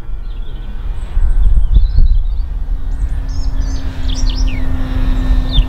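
Small birds chirping over a loud low rumble. About two and a half seconds in, a steady hum joins: the brushless electric motor and 11x6 propeller of an E-flite DHC-2 Beaver model plane flying overhead.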